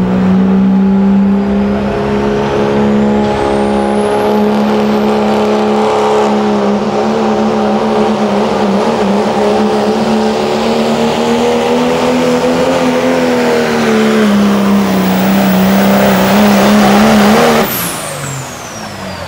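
Turbocharged diesel pickup engine held at full throttle while pulling a weight-transfer sled, a steady high-rpm note that rises a little mid-pull and then eases back. It cuts off abruptly near the end as the driver lets off, with a high whistle dropping away.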